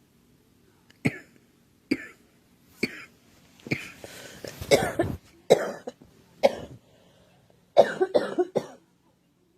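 A girl coughing repeatedly: single coughs about a second apart, then a quick run of several coughs near the end.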